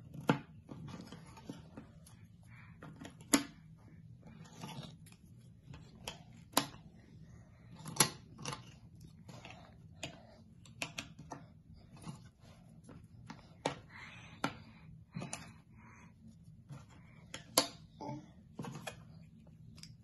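Jigsaw puzzle pieces being handled, slid and pressed into place: irregular light clicks and taps, with a few sharper ones and soft shuffling between them.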